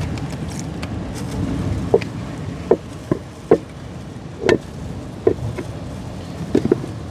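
Dough being kneaded and pressed in a pot, giving short, dull knocks at irregular intervals, about one a second, more frequent near the end. A steady rush of wind and sea fills the first few seconds.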